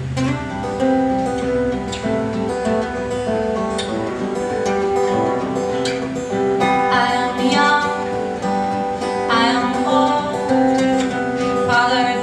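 Band music led by acoustic guitar, playing an instrumental passage of a song with sustained chords and melody notes.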